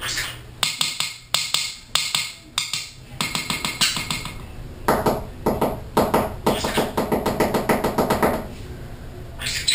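Pineapple green-cheeked conure tapping its beak on its perch in quick runs of sharp taps, with a longer, denser run in the second half.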